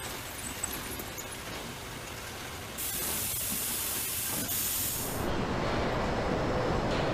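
Steady hissing background noise of an industrial building, with no distinct event. It turns brighter and louder about three seconds in, then shifts near five seconds to a duller, fuller room noise.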